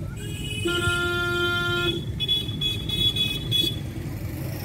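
A vehicle horn honks one steady note for about a second, starting about a second in, over the low rumble of a vehicle driving along the road. A shriller tone sounds on and off until nearly four seconds in.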